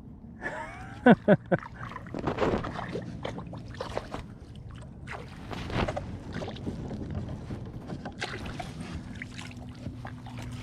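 Water splashing and sloshing around a kayak while a big hooked ribbonfish is brought in, with two sharp knocks about a second in and scattered smaller clicks.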